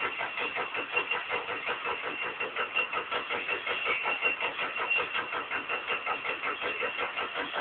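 Stamping press running continuously: a fast, even clatter of repeated strokes with a steady high tone over it.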